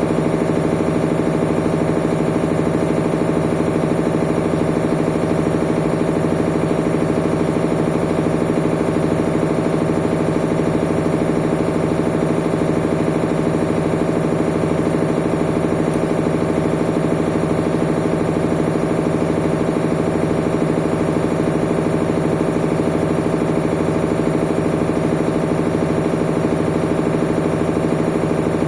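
Whirlpool washing machine running with a steady motor hum and a low, even throb that repeats about once a second.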